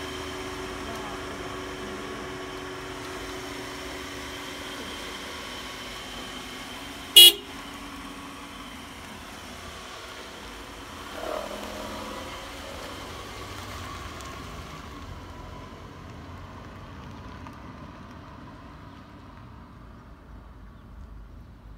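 Steady street background noise with a faint hum, broken by one short, loud car-horn toot about seven seconds in, and a smaller brief sound around eleven seconds.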